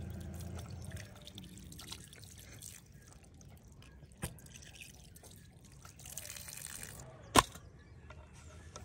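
A thin stream of water poured over a fish, trickling and dripping, while a knife scrapes along it in small clicks. One sharp knock about seven seconds in.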